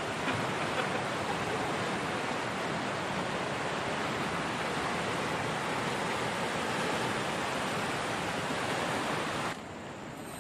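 Steady rush of river water pouring over rock rapids. It drops suddenly to a quieter level near the end.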